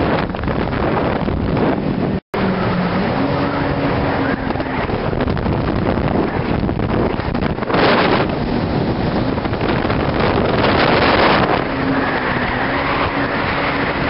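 Jet ski running at speed over open water, its engine a steady hum under heavy wind buffeting on the microphone and water rush. The sound cuts out for an instant about two seconds in.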